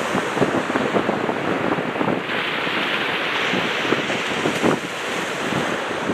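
Wind buffeting the microphone over the wash of open water, with many small irregular ticks and a brighter hiss for about two seconds in the middle.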